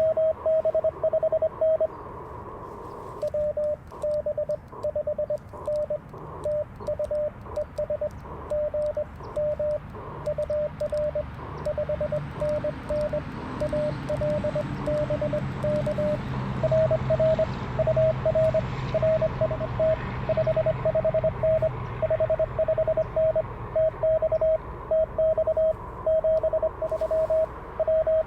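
Morse code (CW) from an Icom IC-705 transceiver: a steady mid-pitched tone keyed on and off in dots and dashes over band hiss. A fainter second Morse signal at a slightly higher pitch comes in near the start and again near the end.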